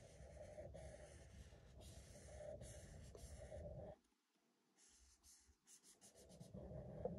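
A yellow crayon rubbing back and forth on paper in quick, faint strokes as an area is coloured in. The sound cuts out abruptly about four seconds in, and faint strokes return, a little louder near the end.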